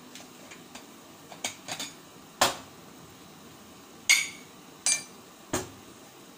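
Kitchen clatter: a series of sharp knocks and clinks of cookware and utensils being handled, about half a dozen, the loudest a little over two seconds in. Two of them, near the middle, ring briefly.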